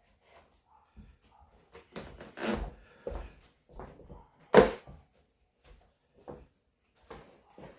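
Rummaging and handling things in a workshop: scattered clunks, scrapes and rustles, with one sharp knock a little past halfway.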